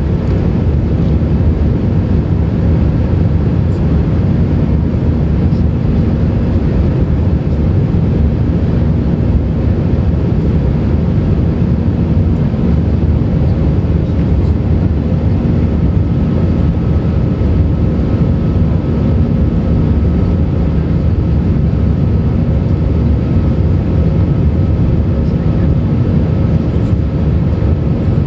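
Steady cabin noise of an Airbus A320-200 in its climb: the drone of its CFM56-5B engines and rushing air, heard inside the cabin by the wing. A faint higher steady tone joins the roar about halfway through.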